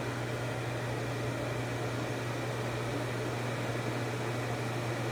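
Microwave oven running with gummies inside: a steady low hum over even fan noise.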